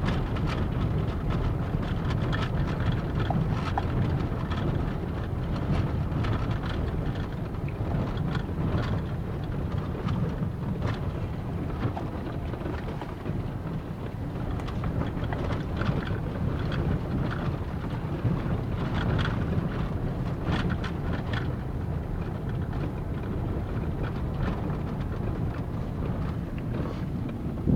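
A car driving along, heard inside the cabin: a steady low rumble of engine and tyres on the road, with frequent small knocks and rattles from the bumpy surface.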